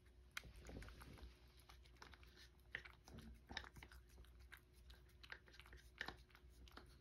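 A cat eating from a small ceramic bowl: faint, irregular wet clicks of licking and chewing as it cleans out the last of its food.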